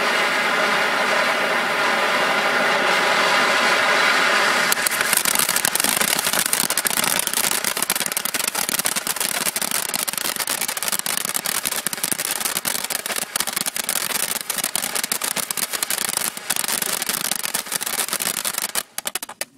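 A Buzz Saw fountain firework spraying sparks with a steady pitched buzz over a hiss. About five seconds in it switches to dense rapid crackling, which carries on until the fountain cuts off abruptly near the end.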